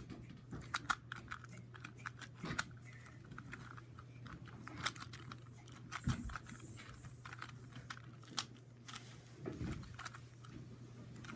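A 3x3 Rubik's cube being twisted by hand: a run of small, irregular plastic clicks and clacks as its faces are turned.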